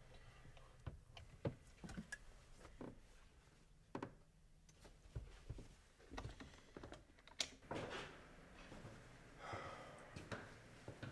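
Faint clicks, knocks and rustling of clothes hangers and clothing being handled on a closet rail, with one sharper knock past the middle.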